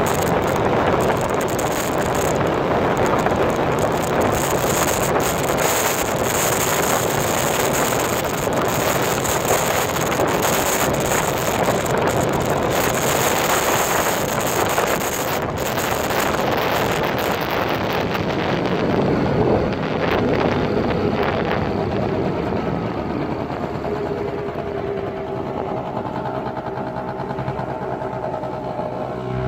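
Piaggio Fly 50 2T scooter's 50 cc single-cylinder two-stroke engine running flat out at around 70 km/h, buried under heavy wind rush on the microphone. After about 18 seconds the wind noise thins as the scooter slows, and the engine's steady lower note comes through near the end.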